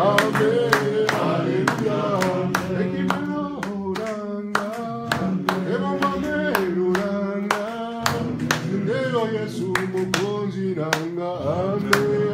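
A group of worshippers singing a hymn together with steady hand clapping in time, several claps a second.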